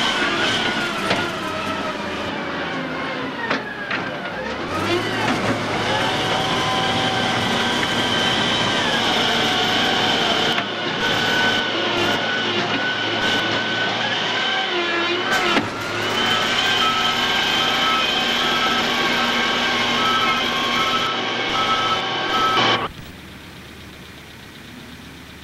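Heavy vehicle engines running, their pitch gliding up and down in the first few seconds, then a steady whine. A reversing beeper sounds repeatedly for several seconds near the end, and the sound cuts off abruptly.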